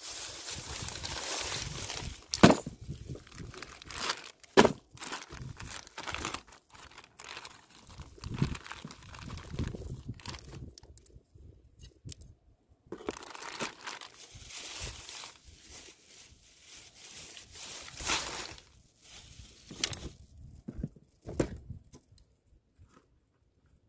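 Plastic bags crinkling and rustling as frozen shad bait is handled, broken by a few sharp clicks and knocks. Later, more knocks as the plastic tackle box is opened.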